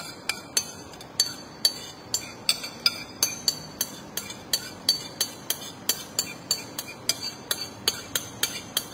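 Chopstick tapping against a dish: a steady run of light, ringing clinks, about two a second.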